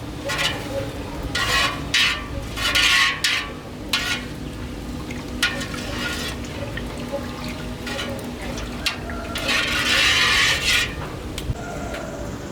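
Stirring and scraping in a cooking pot, in several short noisy bursts, the longest near the end.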